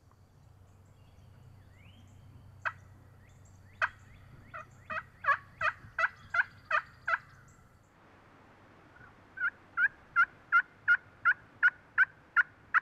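Turkey yelping, with each note breaking downward in pitch. Two single yelps come first, then a run of about eight evenly spaced yelps at about three a second, and after a short pause a second run of about ten.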